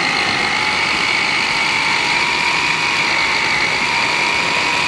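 Moulinex Multi Moulinette electric mini chopper running steadily with a high motor whine, blades puréeing roasted red peppers and garlic-and-herb cheese; the whine creeps slightly up in pitch.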